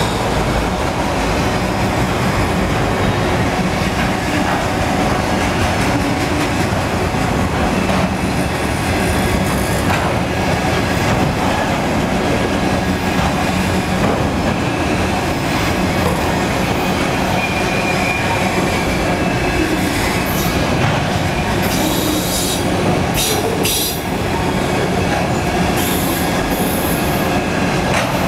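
Railroad cars of a train rolling past on the track with a steady rumble and clatter of wheels on rail. Short, sharp, high-pitched wheel squeals and clanks come in near the end.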